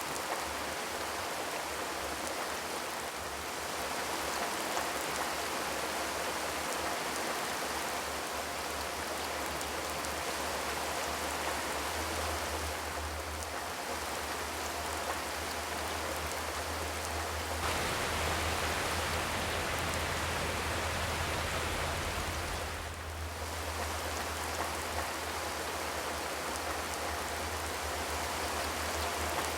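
Steady rain falling, without thunder, an even rushing patter that swells slightly about two-thirds of the way through and dips briefly soon after.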